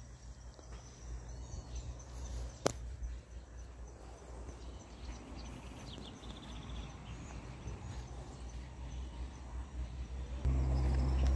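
Quiet outdoor ambience: a steady low rumble with faint high chirps, and one sharp click about two and a half seconds in. The rumble and background noise get louder about ten and a half seconds in.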